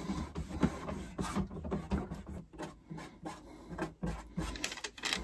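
Fingers rubbing and pressing a vinyl sticker down onto the drawer front of a Stanley rolling tool cart: faint, irregular scratchy rubbing with small taps.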